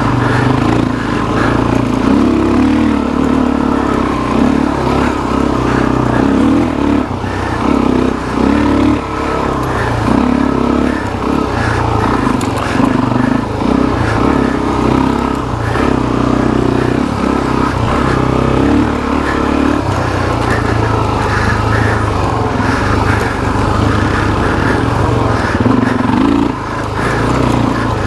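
Suzuki DR-Z400SM's single-cylinder four-stroke engine running as the bike is ridden along a dirt trail, its loudness rising and falling with the throttle.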